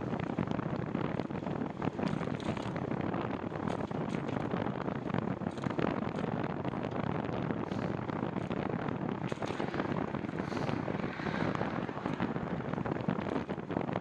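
Wind rushing over the microphone of a moving bicycle, a steady rush with constant rapid crackling.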